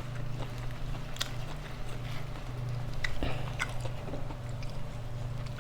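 A person chewing food close to the microphone, with a few sharp clicks of the mouth and food, over a steady low hum.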